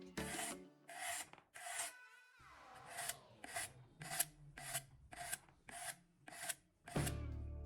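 Knife blade being sharpened by hand: repeated rasping strokes across a sharpening surface, about one every half second, with a short pause about two seconds in. Background music comes in near the end.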